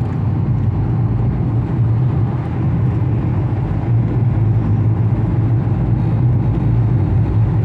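Steady engine and road noise of a car driving along, heard from inside the car: an even low rumble with no change.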